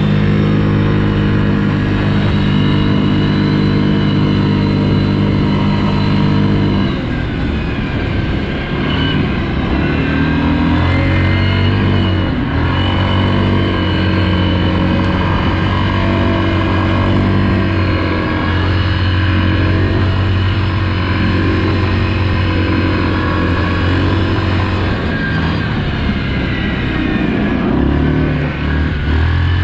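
Yamaha Grizzly EPS SE ATV's single-cylinder engine running at speed on the move, holding a steady note until about seven seconds in, then dropping in pitch and wavering up and down as the ATV slows and picks up again.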